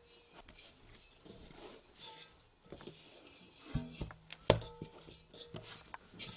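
Hands kneading dough in a large metal bowl: soft rubbing and squishing, with several knocks of the dough and hands against the bowl that set it ringing briefly. The loudest knock comes about four and a half seconds in.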